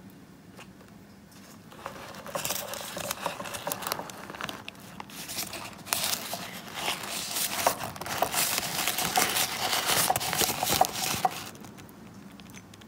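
Thin plastic wrap and disposable plastic gloves crinkling and rustling as the wrap is gathered up and squeezed to strain infused oil into a glass jar. The crinkling starts about two seconds in and stops a little over a second before the end.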